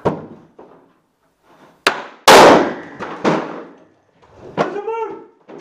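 An explosive door-breaching charge on a breaching pole goes off with one very loud, sharp blast about two seconds in, blowing the wooden door in off its frame, with a further crash a second later. Shouting voices follow near the end.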